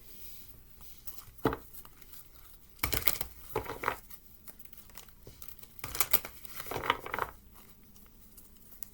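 Cards being handled during a reading, making rustling and clicking noises. There is a sharp click about a second and a half in, followed by short bursts of rustling around three to four seconds in and again around six to seven seconds in.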